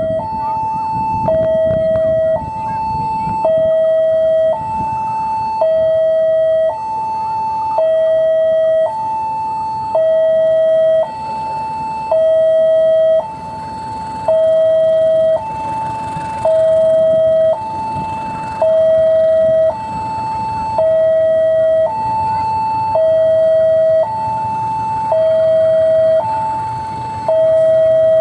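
Railway level-crossing warning alarm sounding a steady two-tone hi-lo chime, high and low tones alternating, each held about a second, with the low rumble of a diesel locomotive pulling its train away underneath.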